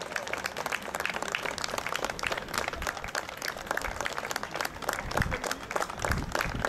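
Applause: many people clapping together, with a couple of low thumps about five and six seconds in.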